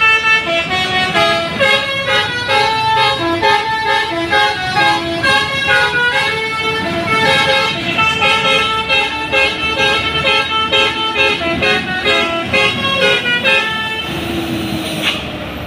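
Telolet multi-tone musical air horn on an ALS bus playing a fast melody of short notes. The melody stops near the end.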